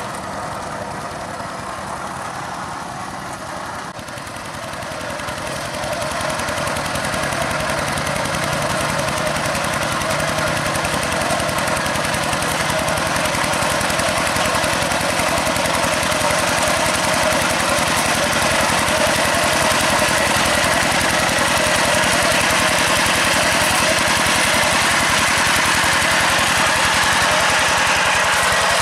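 Two-wheel hand tractor's single-cylinder diesel engine chugging steadily under load as it ploughs a wet rice paddy. It grows louder about five seconds in and then holds steady.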